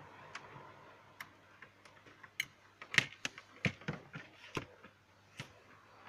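Snap-fit clips of a Samsung Galaxy Tab A's back cover clicking loose as a plastic opening pick pries it away from the frame. An irregular run of short, sharp clicks, bunched in the middle, the loudest about three seconds in.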